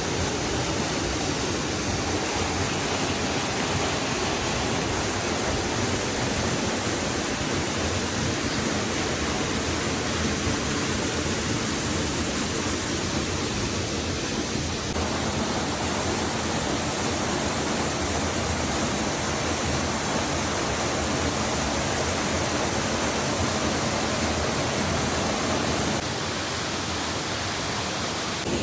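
Waterfall rushing in a steady, loud, even roar of falling water, its tone shifting slightly about halfway through and again near the end.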